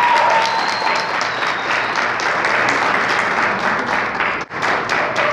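Audience applauding, with a shout held over the clapping in the first second or so; the sound drops out momentarily about four and a half seconds in.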